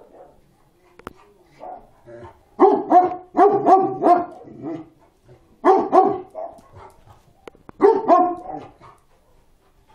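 Dog barking in three bouts: a quick run of about five barks a couple of seconds in, then two short bursts of two or three barks near the end.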